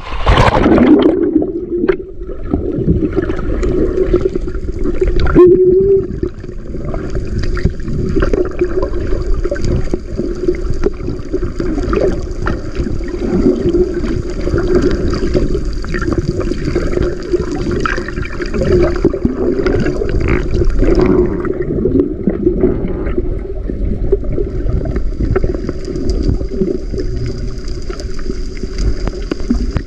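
Sea water heard through a camera held underwater: a splash as it goes under, then muffled gurgling and sloshing with a steady low drone.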